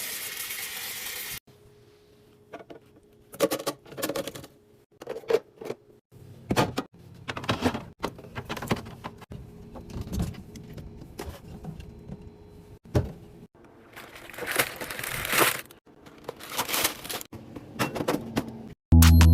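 Close-up handling sounds of restocking: a hiss for about the first second and a half, then scattered clicks, knocks and rustles as items and packaging are handled and set down.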